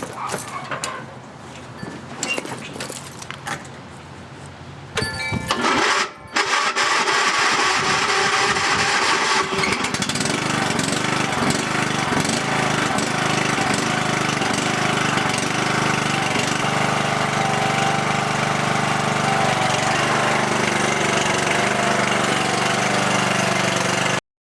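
MTD Huskee lawn tractor engine, cranked by the starter on a newly fitted battery, catching after about a second and then running steadily. A few light clicks and rattles come before the cranking.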